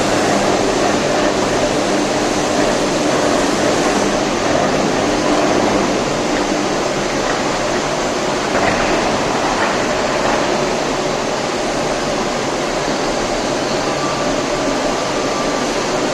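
Electric arc furnace melting steel: a loud, steady noise with a few faint steady tones running through it.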